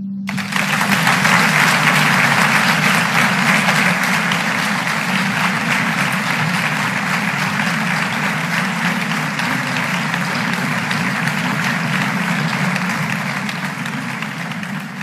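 A large audience applauding. The applause breaks out all at once and holds steady, easing off a little near the end.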